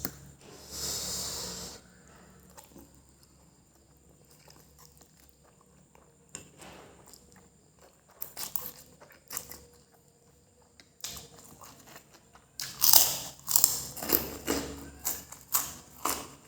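Close-miked eating of fried noodles: wet chewing and biting, with a short burst of noise about half a second in, a quiet spell, then a run of loud, quick mouth smacks and chews over the last few seconds.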